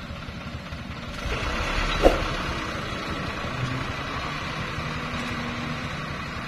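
Loaded dump truck driving away, its engine and tyre noise swelling about a second in and then slowly fading. A single sharp clack about two seconds in.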